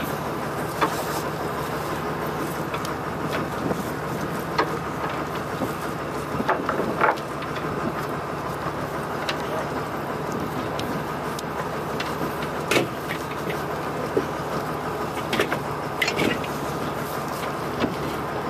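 A fishing boat's engine running steadily, with scattered short knocks and clacks of rope and gear as the crew haul in the line over the gunwale.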